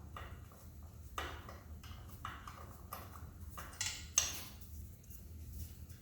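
Hand wrench working the exhaust fasteners on a motorcycle, with irregular metal clicks and knocks of the tool against the bolts and pipe. The sharpest, loudest clack comes about four seconds in.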